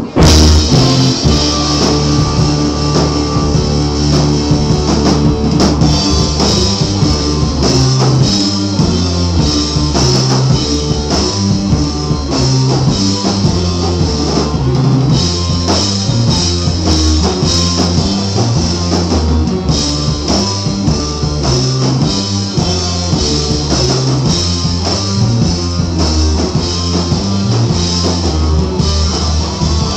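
Rock band playing live: guitar and drum kit over heavy low notes. The music starts abruptly at full volume right at the beginning and then carries on steadily.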